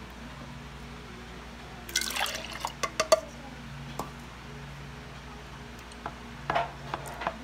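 Blended liquid marinade pouring and dripping from a blender jar onto a raw whole chicken in a pan. Wet splats and taps come in two clusters, about two seconds in and again near the end.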